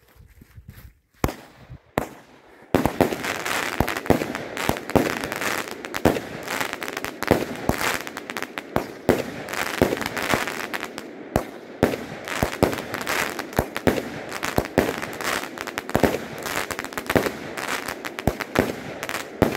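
Fireworks battery (cake) firing. A couple of single shots come about a second in, then from about three seconds in a dense, continuous barrage of shots and bursts over heavy crackling.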